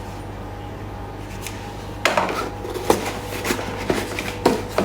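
Hard plastic hair dryer attachments being handled, clicking and knocking against each other and the packaging in a run of short, light clatters starting about two seconds in, over a steady low hum.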